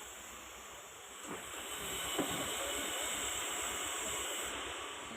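A steady hissing, rushing noise that grows louder about a second in and then holds.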